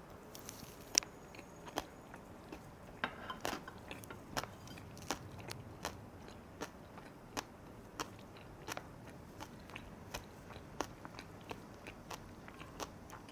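Mouth chewing a bite of Korean pancake (jeon) wrapped around spicy fermented skate salad (hongeo muchim), with short crunchy clicks about once or twice a second.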